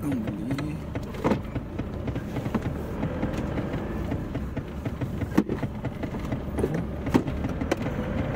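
Chevrolet Tavera's engine and drivetrain running as it pulls away in first gear, heard from inside the cabin as a steady low rumble with an engine note that rises slightly near the end. A few sharp clicks sound over it. The owner finds it smooth, with little engine noise for its 170,000 km.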